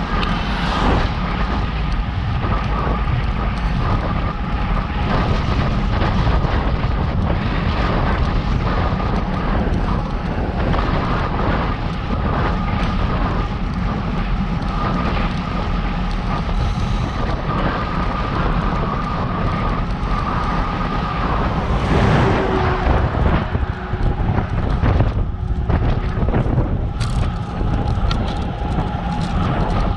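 Steady wind noise buffeting the microphone of a camera riding along on a bicycle, a dense low rumble with road noise mixed in. Two faint steady tones run through most of it, and the noise swells louder about two-thirds of the way in.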